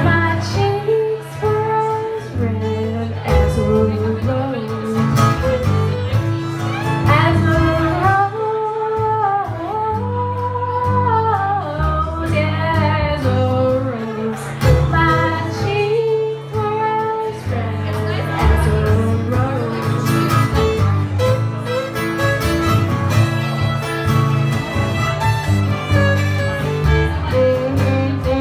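Acoustic string trio playing a folk song: upright double bass, strummed acoustic guitar and fiddle, with a woman singing.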